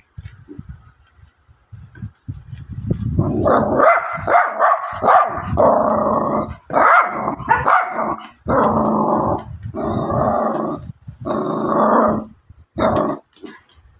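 Jack Russell terrier puppy growling, low and rumbling at first, then about three seconds in breaking into a run of loud growling barks, each about a second long with short gaps between them.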